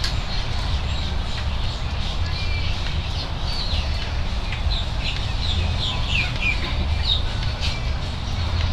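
Birds calling with many short, quick downward chirps, over a steady low rumble.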